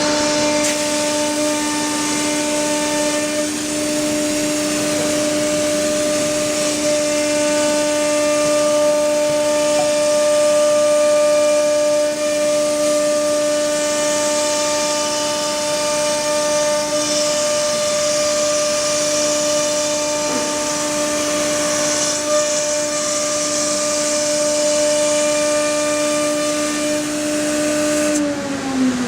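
Wood CNC router spindle running at speed with a steady high whine and a broad hiss over it. About a second before the end the spindle winds down, its whine falling steeply in pitch.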